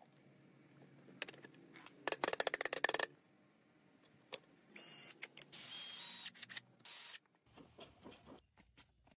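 Hands handling PVC pipe parts: a quick run of clicks and rattles, then a couple of seconds of loud scraping noise with brief squeaks, and a few soft knocks near the end.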